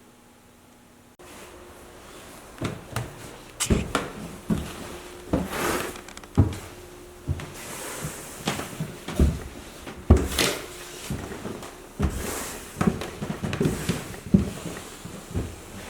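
Irregular knocks and clunks, like cupboard doors, drawers and household objects being handled in a small room, starting abruptly about a second in and going on in an uneven series.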